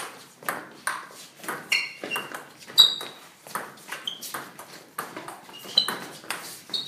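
Table tennis rally: the ball clicks in quick, regular succession off the paddles and the table top, a couple of hits a second, with a few short high squeaks of sneakers on the floor.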